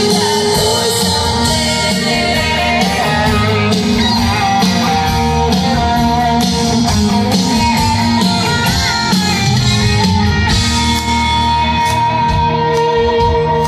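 A live country band plays a loud, up-tempo instrumental break with guitars and a driving beat, heard from among the crowd.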